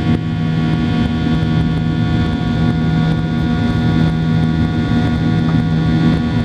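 Steady drone of a jet airliner's engines and rushing airflow heard inside the passenger cabin, with a strong low hum and several steady tones.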